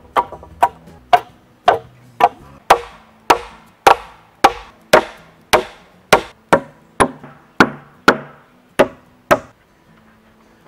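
Steady hammering, about two blows a second, as nails are driven into fresh-sawn wooden planks with the back of a hatchet. The strikes stop about nine seconds in.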